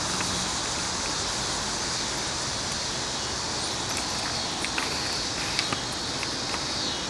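Steady outdoor background noise, an even hiss, with a few faint clicks.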